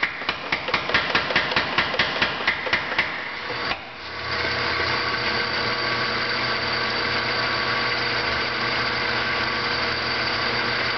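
25 lb Little Giant mechanical power hammer striking red-hot round bar in a fast, even run of about five blows a second. The blows stop a little over three seconds in, leaving the hammer's drive motor running with a steady hum.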